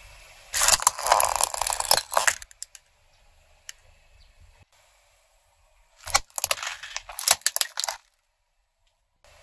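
Hard plastic toy car cracking and snapping under a car tyre, a rapid run of sharp cracks lasting about two seconds. About four seconds later comes a second run of plastic cracking and crackling as small candy-filled plastic umbrella toys are crushed.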